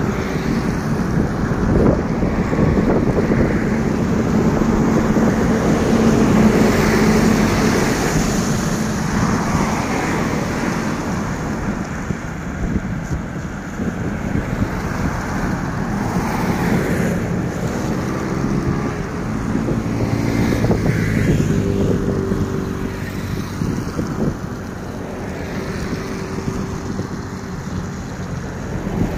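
Road traffic driving past on a highway, cars and trucks with their engine hum swelling and fading as they pass, and wind on the microphone. The passes are louder a few seconds in and again about two-thirds of the way through.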